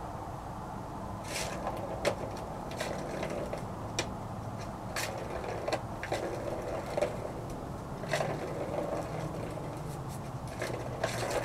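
Irregular clicks and scrapes of a plastic ball knocking around inside a circular track cat toy as a kitten paws at it, over a steady low background rumble.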